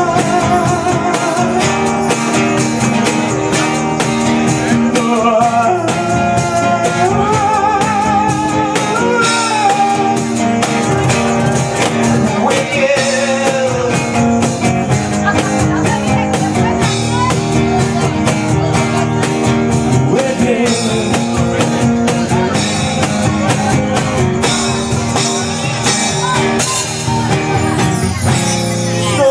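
Live acoustic music: a man sings with vibrato over a strummed nylon-string classical guitar, with percussion keeping a steady beat throughout.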